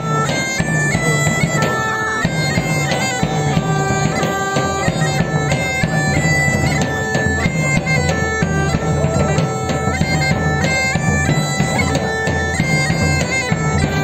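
Bagpipe playing a folk melody over a steady drone, the tune moving in quick steps.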